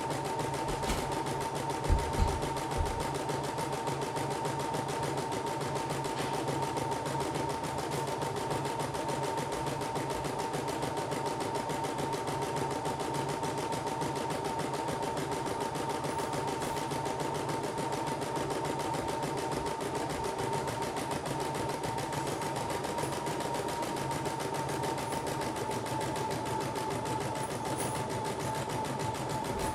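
CNY E960 embroidery machine stitching a design automatically: rapid, even needle strokes over a steady motor whine as the hoop carriage moves the fabric. A few short knocks about two seconds in.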